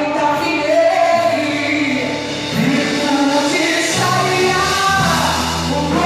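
Gospel worship group singing in several voices over instrumental accompaniment, with long held notes.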